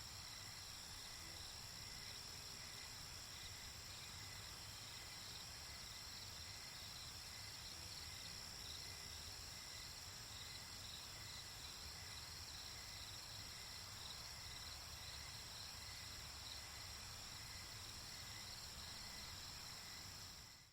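Night-time insect chorus: steady high-pitched trilling of crickets, with rows of evenly repeated chirps lower down, over a faint low rumble. It fades out at the very end.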